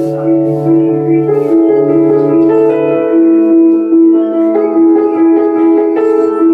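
An LG 43UQ7550 4K TV's built-in speakers playing instrumental music with long held notes and a slow melody, at a loud volume, to demonstrate the set's sound quality.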